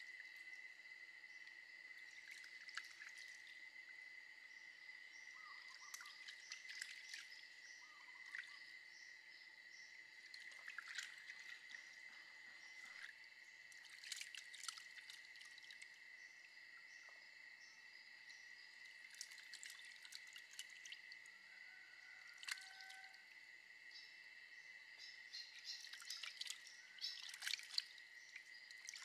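Faint splashing and dripping as hands wash raw prawns in a bowl of water, in short bursts of sloshing every few seconds, the busiest near the end.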